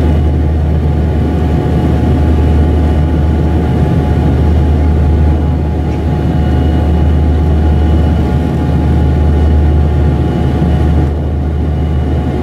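Cabin sound of a de Havilland Canada Dash 8 Q300's twin turboprop engines and propellers: a steady drone with a strong deep propeller hum and steady tones above it. The aircraft is on final approach with the landing gear down, and the level dips slightly near the end.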